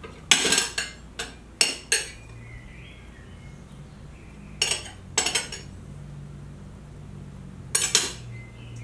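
Knife and fork clinking against glass plates while a pancake roll is cut and served. The sound comes as short, sharp clinks in three clusters: several in the first two seconds, a few in the middle, and one more group near the end.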